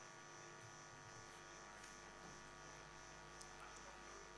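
Near silence with a faint, steady electrical hum, likely from the recording or sound-system feed.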